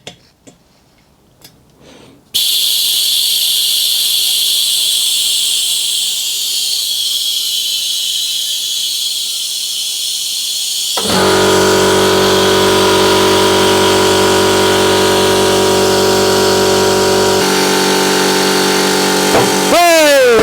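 Background rock music with distorted electric guitar. It starts suddenly about two seconds in, gets fuller with sustained chords about eleven seconds in, and ends in falling pitch slides.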